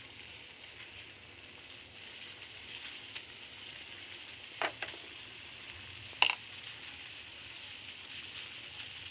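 Water at a full boil in a pan on a gas stove, a steady bubbling hiss. Two sharp clicks about four and a half seconds in and a louder click about six seconds in.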